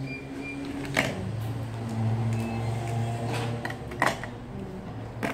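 Hard plastic toy pieces clicking and tapping as they are handled on a plastic playwheel, three sharp clicks over a steady low hum.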